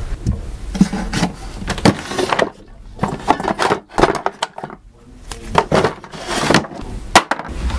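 Irregular knocks, clatter and rustling of a wooden desk drawer being opened and rummaged through, with paper being handled on the desktop.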